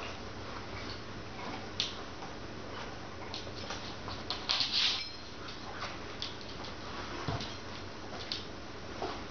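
Redbone coonhound chewing and licking a red rubber Kong toy to get the pork out: irregular wet clicks and smacks of mouth and teeth on rubber, with a quick cluster of them about halfway through.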